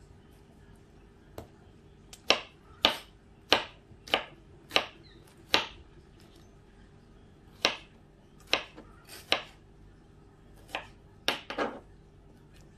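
Kitchen knife cutting through tomato and knocking on a wooden cutting board. After about two seconds comes a run of six sharp knocks a little over half a second apart, then more scattered knocks in twos and threes.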